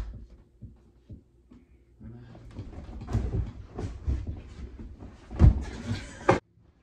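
Rustling and thumping as a giant plush teddy bear is shoved and pressed against a leather sectional sofa, with a few knocks and one loud thump about five and a half seconds in. The sound cuts off suddenly near the end.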